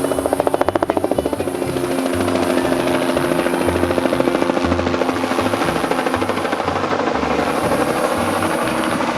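Crop-spraying helicopter flying close by: fast rotor beating, plainest in the first second and a half, over a steady drone.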